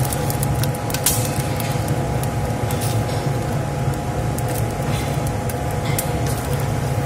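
Noodles boiling in water in a metal pot and being stirred with a wooden spatula, with a few light knocks of the spatula against the pot over a steady low rumble.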